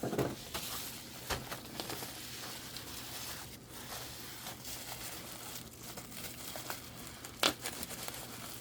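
Packing material being handled and crinkled while the next item is dug out of a shipping box: steady rustling with many small crackles and a sharper click near the end.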